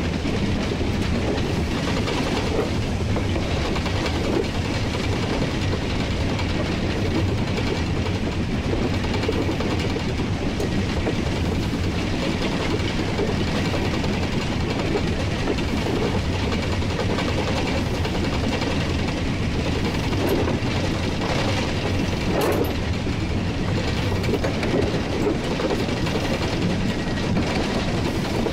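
1943 Davenport-built steam locomotive running, heard from the cab: a steady clatter of wheels over the rails and the engine's running noise, with one brief sharper sound about three-quarters of the way through.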